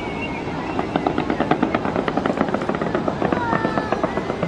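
Fireworks crackling in a rapid run of sharp pops, roughly ten a second, for about three seconds from a second in. Thin gliding whistles sound at the start and near the end, over the noise of a crowd.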